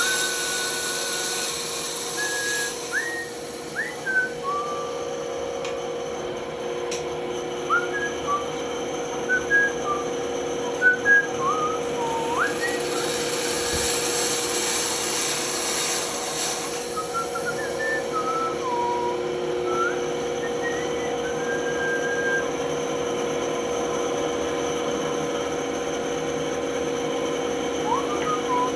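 A man whistling a tune in short, broken phrases over a running band saw, whose steady hum goes on throughout, with a brighter cutting hiss at the start and again from about twelve to seventeen seconds in.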